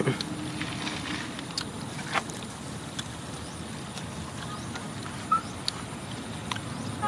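Steady outdoor background noise with a few short sharp clicks scattered through it, and one brief high chirp about five seconds in.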